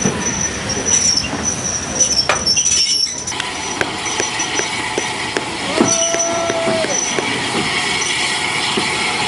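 Railway carriages rolling slowly past with repeated high wheel squeal. After a cut, a Bulleid light Pacific steam locomotive runs slowly, its wheels clicking regularly over rail joints, and a whistle sounds once for about a second partway through.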